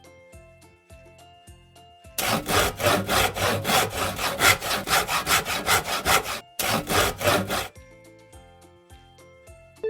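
Rhythmic back-and-forth rasping strokes, about four a second, starting about two seconds in, pausing briefly near six and a half seconds, then going on for about another second before stopping. Soft background music plays under it.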